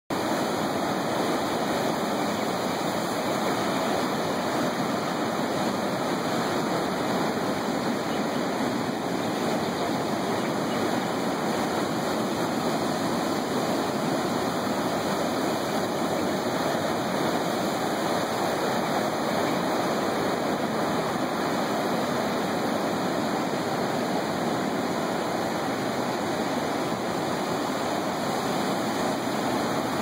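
Heavy ocean surf making a steady, even rush of noise, with no single wave crash standing out.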